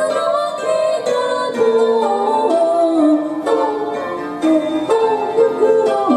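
Recorded backing-track music for a pop song: a melody over sustained chords, used as the accompaniment for two singers.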